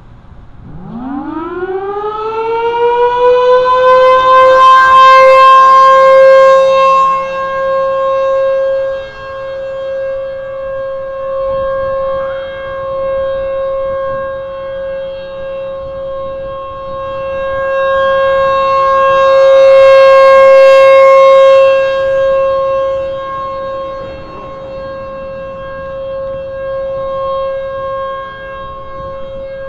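Federal Signal Thunderbolt 1000 civil defense siren starting up: its pitch rises quickly over the first few seconds to one steady high tone, which it then holds. The loudness swells and fades as the rotating horn sweeps round, loudest about five seconds in and again about twenty seconds in.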